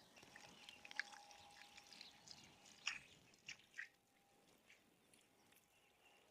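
Near silence, with a few faint, short clicks and taps in the first four seconds.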